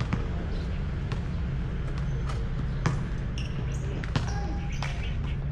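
A basketball bouncing on an outdoor hard court, several sharp thuds at uneven spacing, over a steady low hum.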